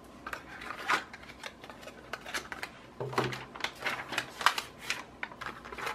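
Hands rummaging through paper and plastic sample packets in a cardboard box: an irregular run of light clicks, taps and crinkles.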